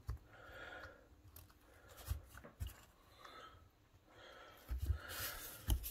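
Faint rubbing and scuffing as rubber slider boots are worked by hand into a motorcycle brake caliper bracket, with a few soft knocks of the metal parts, the loudest near the end.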